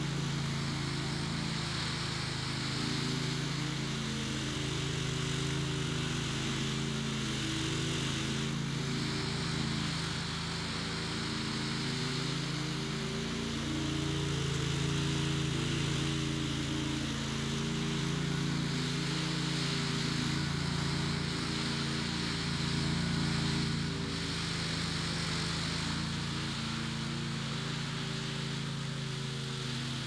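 Small gasoline engine of a walk-behind power trowel running steadily while its float pan smooths fresh concrete.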